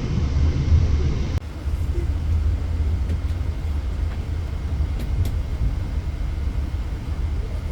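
Steady low rumble of a passenger train. About a second and a half in, the higher hiss above it drops away suddenly.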